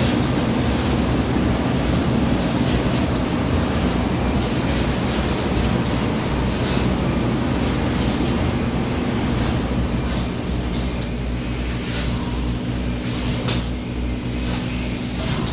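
CNC laser cutting machine running: a steady low hum under a continuous hiss, with a few faint clicks.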